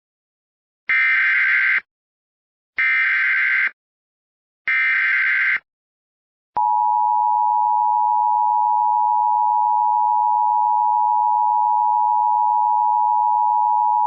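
Emergency Alert System tornado warning opening: three bursts of SAME digital header data, each about a second long and a second apart, then the EAS attention signal, two steady tones sounded together, starting about six and a half seconds in and continuing to the end.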